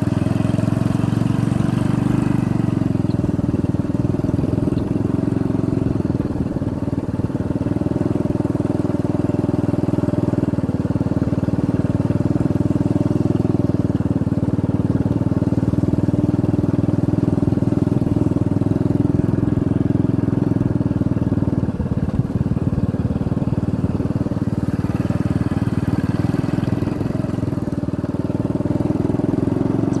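A motor vehicle's engine running steadily at a slow, even pace, easing off briefly a few times.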